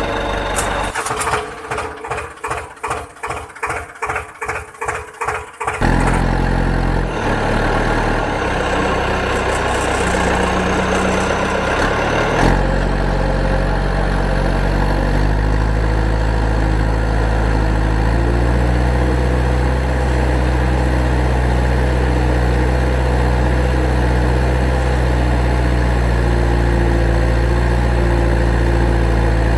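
A vehicle engine: a few seconds of rhythmic chugging at about two to three beats a second, like an engine being cranked, then the engine running with a steady low hum that changes note twice, about six and twelve seconds in.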